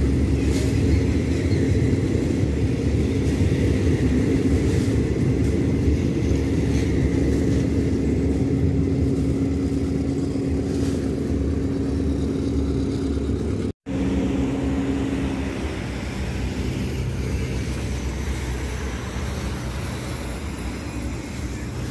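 Diesel-hauled passenger train pulling out of the station: a heavy low rumble with a steady hum that slowly fades as it moves away.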